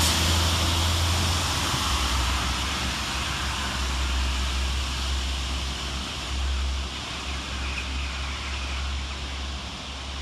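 A pair of Network Rail Windhoff multi-purpose vehicles, DR 98982 and DR 98932, passing through the station without stopping. There is a steady rushing noise with a low rumble, slowly fading as they draw away.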